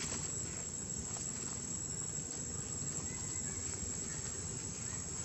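Outdoor ambience: a steady, high-pitched insect drone over a low background rumble, with a few faint ticks and rustles.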